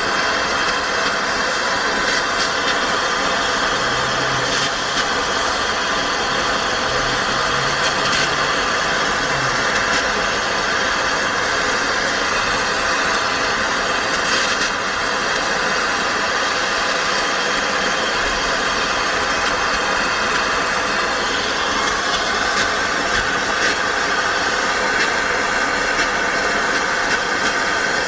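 A steady machine noise: a motor running with an even, unbroken hiss, holding the same level throughout.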